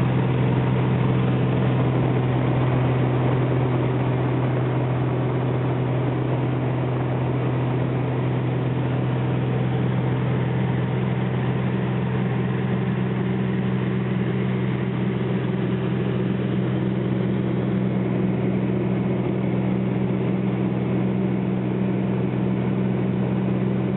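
Engine running at a steady, unchanging speed: a constant low drone over a noisy rush, cutting in abruptly at the start.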